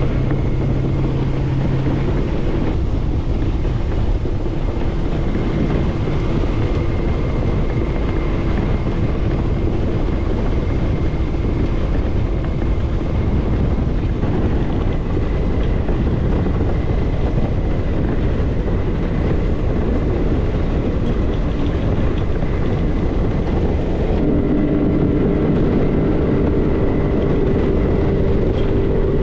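90 hp Mercury outboard motor on a 3-blade 16-pitch propeller running hard and climbing toward wide-open throttle, from about 4,000 to nearly 6,000 rpm. Its pitch rises, with a clear step up about 24 seconds in.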